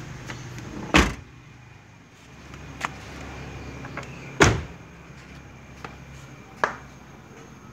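Car doors of a 1992 Honda Accord Maestro sedan being shut: two loud slams, about a second in and about halfway through, with lighter thuds between them and near the end.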